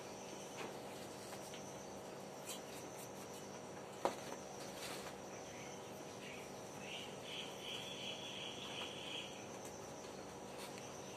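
Faint insect chirping in trilled bursts over a steady low hum, with one sharp click about four seconds in.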